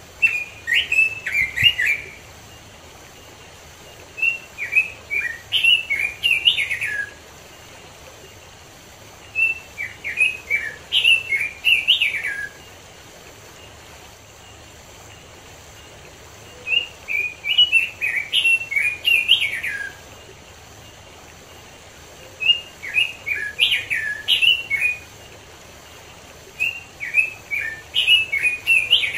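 Red-billed leiothrix (Pekin robin) singing: six warbling phrases of quick, rising and falling whistled notes, each two to three seconds long, with short pauses between them.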